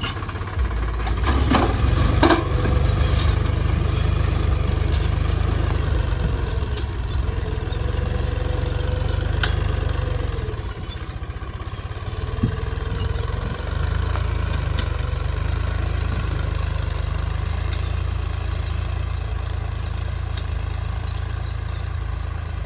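Farm tractor's diesel engine running steadily under load while pulling a ridger through the soil, with a couple of sharp clanks about two seconds in.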